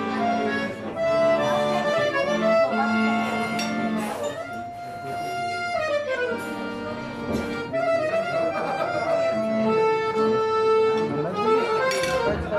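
Live accordion and violin playing a csárdás together, with a downward slide of notes about six seconds in.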